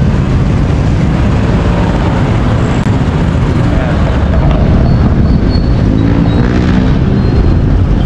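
Road traffic heard from a moving bicycle: motor vehicles running close by under a heavy, steady rumble of wind on the microphone. A passing engine stands out briefly about six seconds in.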